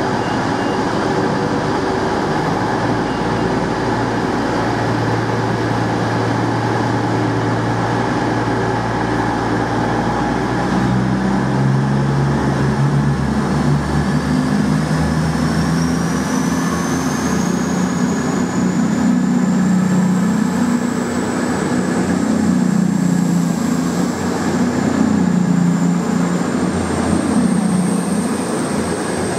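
Class 221 Super Voyager diesel-electric train pulling away: its underfloor diesel engines run steadily, then rev up about a third of the way in, and a high whine rises in pitch as the train gathers speed, then holds.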